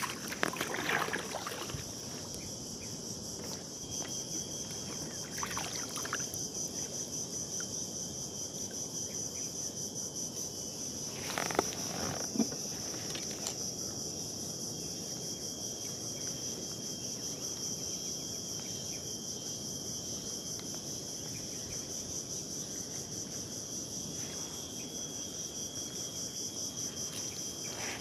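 A steady chorus of insects: a fast pulsing high buzz with a thin, steady whine below it. The whine drops out for a few seconds near the middle. Brief handling clatter with two sharp knocks about twelve seconds in.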